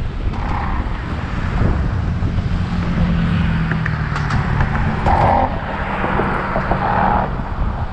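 Strong wind buffeting the microphone, with a vehicle's engine hum passing from about a second and a half in until near the end.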